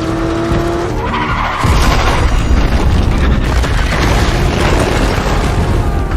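Film car-chase sound effects: an engine revs up, tyres skid, and from about a second and a half in a heavy low rumble takes over.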